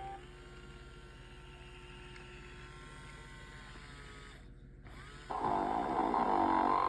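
Sing & Snore Ernie plush toy's electronic snoring through its small speaker: a quiet stretch with a faint steady hum, then a loud snore starting about five seconds in.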